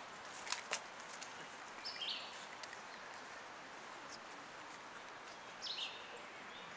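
Outdoor woodland ambience: a steady soft hiss with a few short, high bird chirps about two seconds in and again near the end, and a couple of faint clicks about half a second in.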